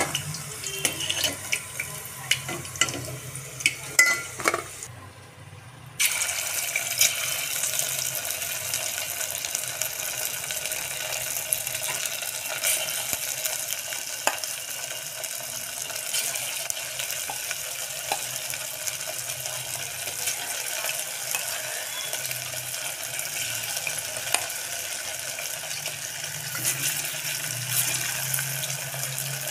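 Battered chicken pieces deep-frying in hot oil in an aluminium pot: a steady sizzling hiss with small crackles. In the first few seconds a steel slotted spoon clinks and scrapes against the pot as fried pieces are lifted out.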